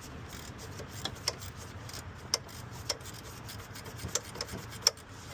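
Irregular light metallic clicks and scraping of a hand tool and socket as a 12 mm bolt is worked loose in an engine bay.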